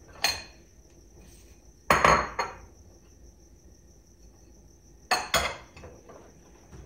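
Ceramic bowls clinking against each other as they are dried with a towel and stacked: one sharp clink just after the start, the loudest pair about two seconds in, and two more a little after five seconds.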